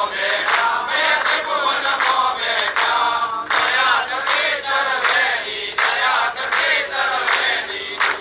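A crowd singing a devotional song together in chorus, clapping their hands in time about twice a second.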